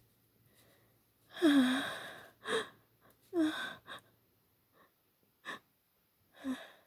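A woman's sneezing fit. Two loud voiced gasps with falling pitch, about two seconds apart, are each cut off by a short sharp burst. A few shorter catches of breath follow, with a last voiced one near the end.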